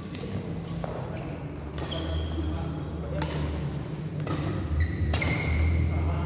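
Badminton rackets striking a shuttlecock, about five sharp hits roughly a second apart, with a couple of short high squeaks from shoes on the court mat over a steady low hum in a large hall.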